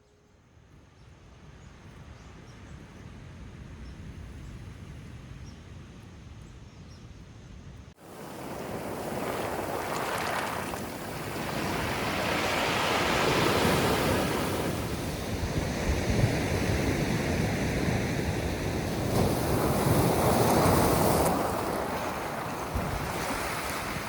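Ocean surf on the shore with wind on the microphone. A faint low rumble of waves gives way abruptly to closer, louder surf that swells up twice, as waves wash in.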